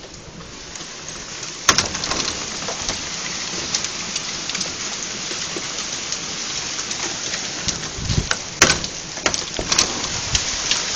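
Hail coming down hard: a dense patter of small hailstone impacts that builds up over the first couple of seconds, with a few louder sharp hits, one about a second and a half in and two near the end.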